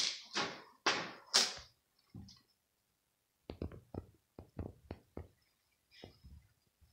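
Cat scratching at litter in a plastic litter box to cover its pee: about four scraping strokes, roughly half a second apart, in the first second and a half. Then, from about three and a half seconds in, a quick run of light knocks and thumps.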